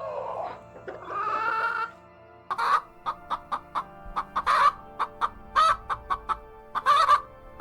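Chickens clucking in quick short notes, broken every second or so by louder, drawn-out squawking calls.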